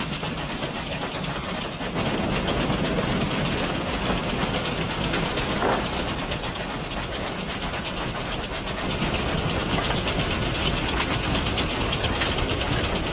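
Moving passenger train, a steady rumble and rapid clatter of wheels on the rails, getting louder about two seconds in.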